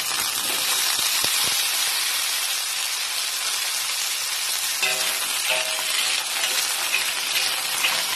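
Carrot and potato pieces sizzling in hot cooking oil in a wok, a steady frying hiss. From about five seconds in, a spatula stirring them adds scraping and clatter.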